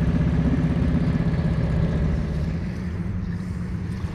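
Boat motor running with a steady low drone that eases off a little about two seconds in.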